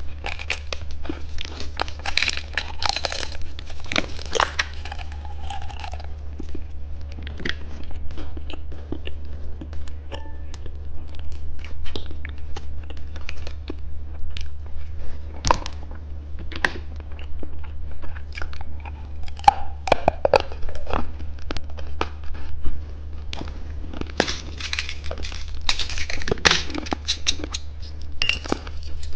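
Candy being crunched and chewed close to the microphone, with wrappers crinkling and tearing in bursts near the start and again near the end, over a steady low hum.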